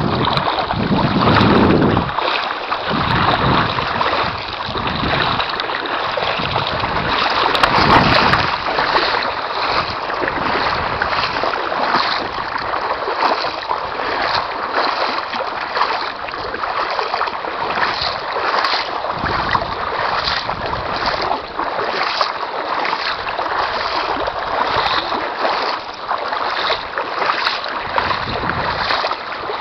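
Water sloshing and splashing in a shallow river, with regular splashes a little more than once a second.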